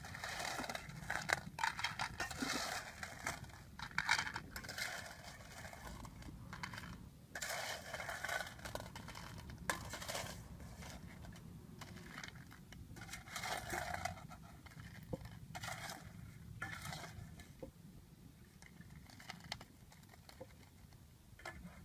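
A metal spoon scraping and clinking against a stainless steel bowl as cooked shellfish in their shells are scooped out and rattle onto a plate. The clatter comes in irregular spells of a second or two, with short quieter gaps between them.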